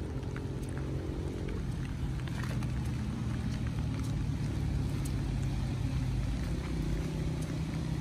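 Electronic fish shocker (backpack electrofishing unit) running with a steady low electrical hum as its bamboo-poled probes sweep the flooded ditch; a higher buzz rides on top for the first second and a half and comes back near the end, with scattered faint ticks.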